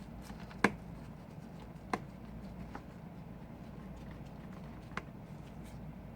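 A few sharp little clicks and taps from handling small tools and phone parts during an iPhone repair: the loudest about half a second in, others near two and five seconds, over a faint steady hum.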